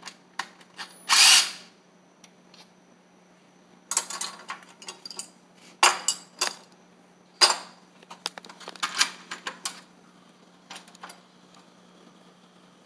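Cordless drill run in brief bursts while fitting blind-mounting hardware, with sharp clicks and knocks from handling the drill, screws and bracket. A faint steady low hum sits underneath.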